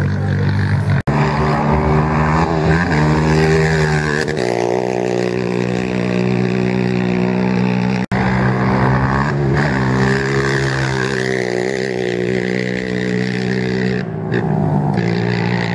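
Race quad (ATV) engines at high revs accelerating away, the pitch swelling and wavering with the throttle. The sound drops out for an instant three times, about one, eight and fourteen seconds in, between different quads.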